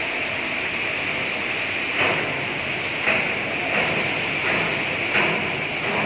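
Steady machinery noise from an overhead crane carrying a suspended steel coil, with a few short louder surges as it moves.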